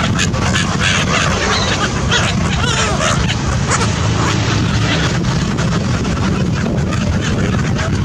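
A flock of gulls calling with short cries while wings flap close by, over a steady low rumble.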